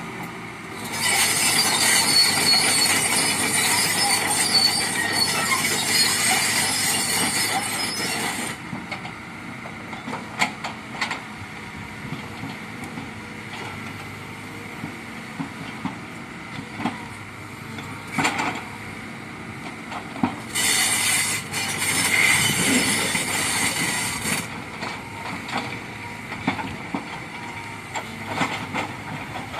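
Kobelco excavator working, with two long stretches of loud, harsh, high-pitched metallic noise, one in the first eight seconds and a shorter one past the middle. A steady mechanical rumble runs underneath, with scattered knocks and clanks between.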